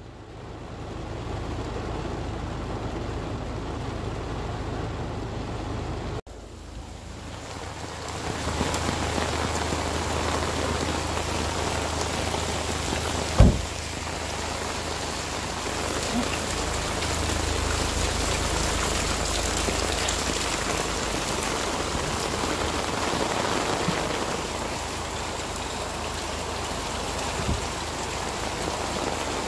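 Steady rain falling, an even hiss, over a low steady hum. The sound drops out briefly about six seconds in and builds back up, and a single sharp knock comes partway through.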